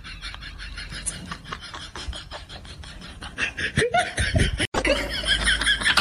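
A person laughing, a quick run of breathy chuckles that grows louder after about three seconds, broken by a sudden momentary dropout in the sound near the end.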